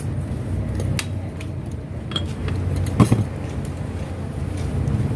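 Light clinks and clicks of utensils and cups at a coffee stall, with one louder knock about three seconds in, over a steady low hum of a motor or engine running.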